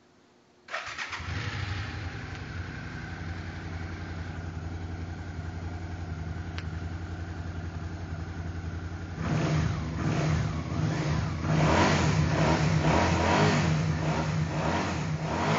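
Suzuki SFV650 Gladius 645 cc V-twin, breathing through a decat pipe and a Leo Vince GP Pro slip-on exhaust, starts up about a second in and idles steadily. From about nine seconds on it is revved in a series of louder throttle blips.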